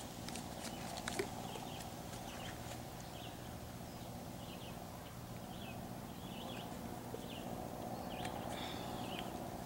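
Birds singing: short, faint high chirps repeating over a steady low background hum, with one light click about a second in.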